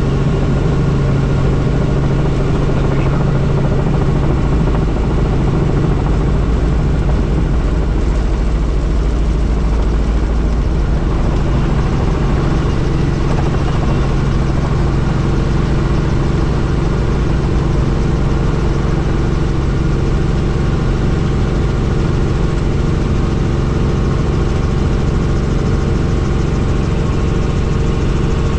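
Helicopter in flight: a loud, steady drone of engine and rotor with an even hum, the low rumble growing heavier for several seconds about a fifth of the way in.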